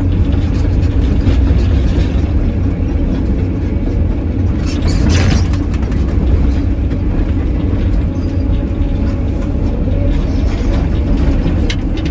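Caterpillar 320D excavator's six-cylinder diesel and hydraulics running steadily, heard from inside the cab as the machine swings with its bucket raised. A short metallic rattle comes about five seconds in.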